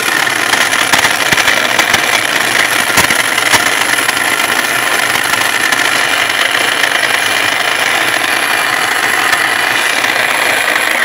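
Lenoxx Pratic Red mini food processor running continuously, its motor whirring and blades chopping calabresa sausage and onion in the plastic bowl. A loud, steady sound with food rattling against the bowl.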